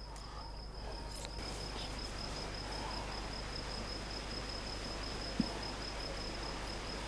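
An insect trilling in a steady, high-pitched, finely pulsing note over faint outdoor background noise, with a single soft tap about five seconds in.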